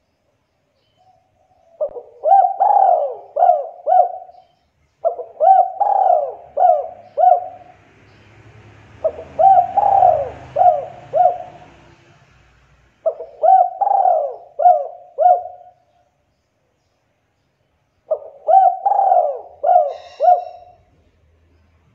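Spotted dove cooing: five phrases of four or five short coos, each phrase a couple of seconds long with pauses between.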